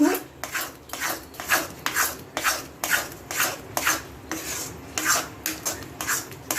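A spatula scraping round the bottom and sides of a kadhai, stirring thick turmeric paste roasting in ghee, in short rasping strokes about two a second.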